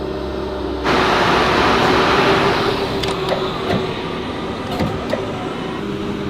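Engine of a heavy recovery vehicle running steadily. About a second in, a loud rushing hiss cuts in suddenly and fades away over the next couple of seconds, with a few light clicks after it.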